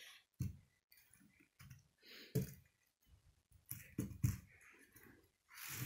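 Faint, scattered taps and soft thumps of a plastic K'nex toy plane being handled and knocking on a cloth-covered table as it spins and tips, with a brief rustle near the end.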